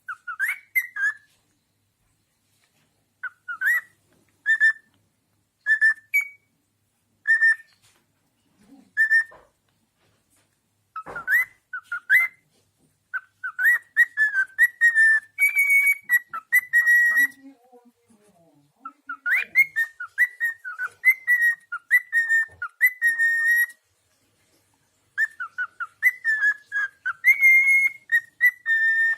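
Cockatiel whistling. It starts with short single whistled notes every second or so, then sings longer runs of quick repeated whistled notes in a mimicked whistling tune.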